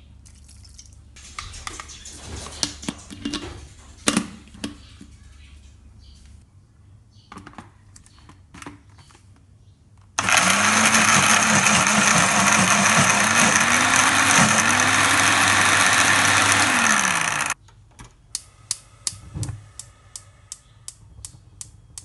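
Countertop electric blender running for about seven seconds, its motor pitch dipping and recovering under load as it purées fermented soybeans with water, then cutting off abruptly. Before it come scattered clinks and handling noises; after it, a series of sharp clicks and knocks.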